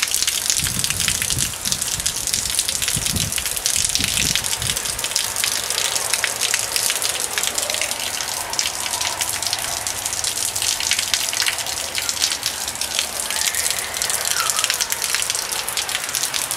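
Rain falling steadily: a dense hiss of countless drops pattering on surfaces. There are a few low thumps in the first five seconds.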